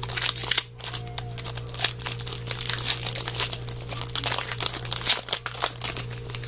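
Trading card pack wrapper crinkling as it is handled and torn open, a dense run of irregular crackles over a steady low electrical hum.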